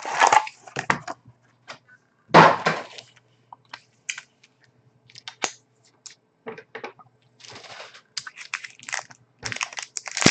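A sealed trading-card box being opened by hand: irregular bursts of crinkling and tearing from its wrapping and cardboard, with scattered sharp clicks and cracks.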